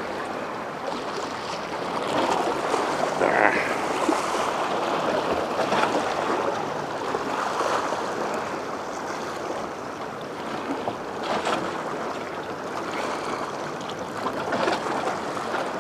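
Steady rush of ocean waves washing at the shore, with a few faint clicks scattered through it.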